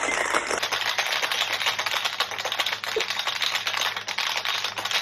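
Ice cubes rattling fast and hard inside a copper-coloured metal cocktail shaker as it is shaken by hand. This is the wet shake with ice that chills an egg-white drink after its dry shake.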